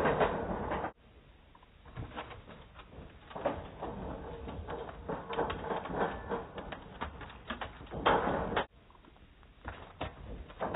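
Irregular soft thuds and patter of running feet and a dog's paws on packed dirt and an agility dog-walk plank. The sound cuts off abruptly twice, about a second in and near the end.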